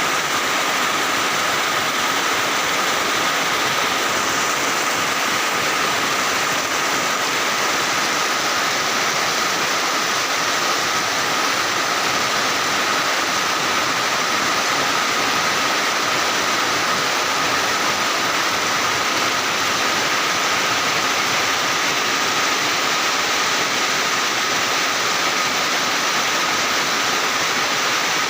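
Heavy rain falling steadily, an even, unbroken hiss with a thin steady tone running through it.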